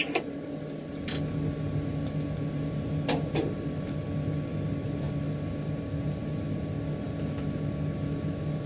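Steady hum of machinery heard inside a tower crane cab, with a few faint clicks about a second and three seconds in.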